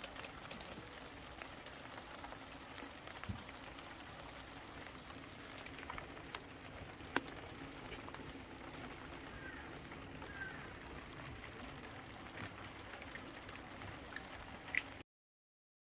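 Light rain pattering steadily, with scattered sharp clicks. The sound cuts off suddenly about fifteen seconds in.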